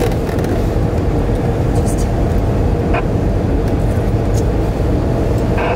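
Steady engine and road noise inside the cabin of a moving vehicle.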